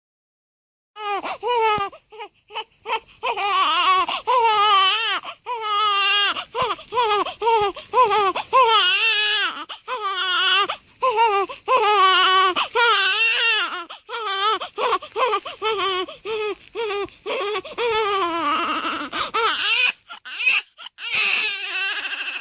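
Newborn baby crying: repeated wavering wails broken by quick gaps for breath, starting about a second in after silence.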